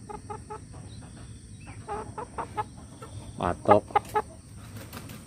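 Chickens clucking: a run of quick soft clucks, then a few louder calls about three and a half to four seconds in.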